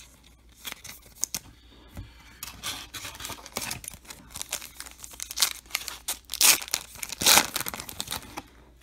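Foil wrapper of a Topps Chrome trading-card pack crinkling and tearing as it is ripped open by hand, a run of short rustles that is loudest near the end.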